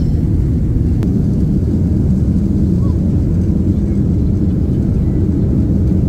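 Jet airliner's engines at takeoff thrust, heard from inside the cabin: a loud, steady, low rumble as the plane takes off.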